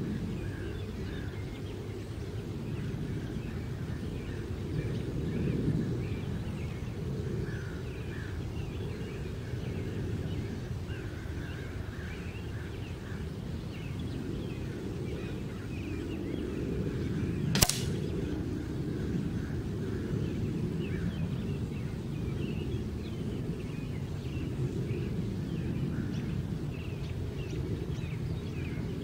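An air-rifle pellet striking a thin aluminium-can target once, a sharp metallic tick with a brief ring about two-thirds of the way through, over a steady low outdoor background.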